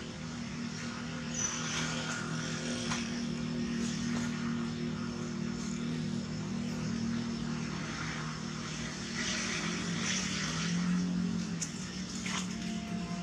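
Steady drone of a distant engine, its pitch dipping slightly about ten seconds in, with a few faint clicks over it.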